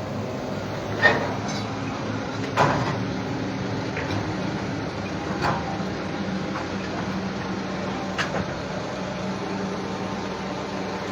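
Steel bridge materials being offloaded from a truck by crane: an engine runs steadily while the metal pieces give sharp clanks, the two loudest a second and a half apart near the start, then a few lighter ones and a quick double clank later.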